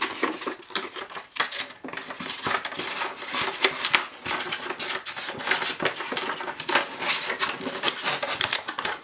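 Styrofoam packing pieces rubbing and scraping against each other as they are handled and pulled out of the box, in a dense run of irregular scratchy strokes, while a coiled power cord is lifted from its recess in the foam.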